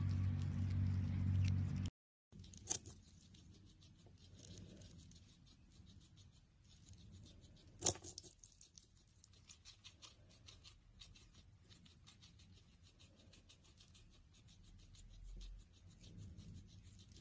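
Hairless guinea pig chewing a cucumber: quiet, rapid crisp crunching and clicking from its teeth, with a few louder snaps of bites. For the first two seconds a louder steady low hum runs, and it cuts off suddenly.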